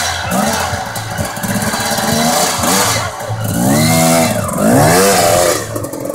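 KTM enduro motorcycle engine being revved in repeated throttle blips, its pitch rising and falling, with the strongest revs about two-thirds of the way through.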